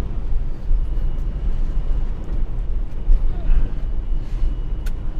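Steady low rumble inside a Boeing 747 cockpit as the jet rolls out and slows on the runway after touchdown. A short sharp click sounds near the end.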